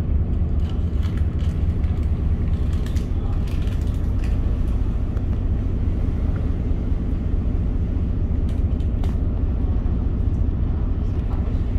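Star Ferry under way: a steady low rumble from the boat's engine, with scattered light clicks and creaks from the vessel.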